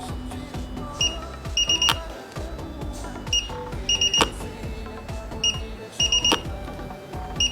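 Background music with a low beat and a repeating pattern of short high electronic beeps: a single beep, then a quick run of three ending in a click, about every two and a half seconds.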